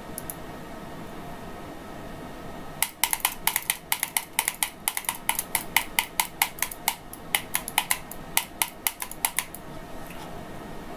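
Keyboard typing: a quick, irregular run of key clicks, several a second, starting about three seconds in and stopping about a second and a half before the end, over a steady faint background hum.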